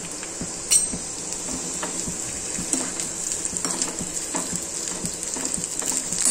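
Dried sliced onions sizzling in hot oil in a metal kadai, with a slotted spoon scraping and clinking against the pan as they are stirred. One sharp click under a second in.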